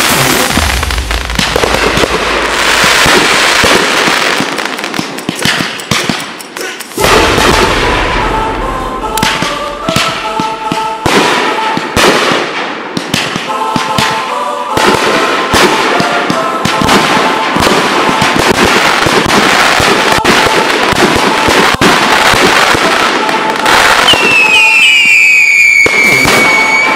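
A dense finale barrage of consumer aerial fireworks: cakes and shells firing and bursting in rapid overlapping booms and crackle, with a brief lull about six seconds in. Near the end a high whistle glides down in pitch over the bursts.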